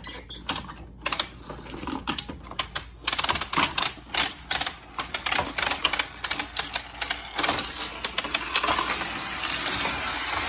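Plastic hand-crank elevator of a Hot Wheels Ultimate Garage playset being wound, clicking as it lifts two toy cars up the tower. The clicks come quickly and unevenly, thickening into a steadier rattle near the end.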